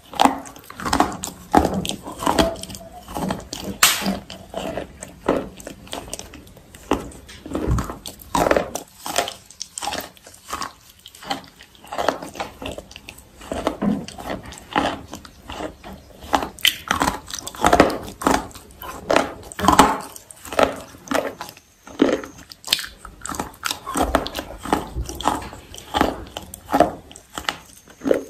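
Close-miked biting and chewing of crunchy roasted grey pieces: a dense run of sharp, irregular crunches, several a second, with brief pauses between bites.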